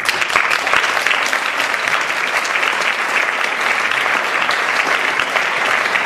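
An audience clapping, breaking out all at once and keeping up at an even level.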